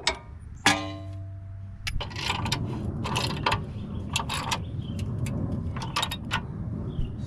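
Torque wrench ratcheting in short strokes as the 17mm lower control arm bolt is tightened toward 61 foot-pounds, with a metallic clank that rings briefly about a second in.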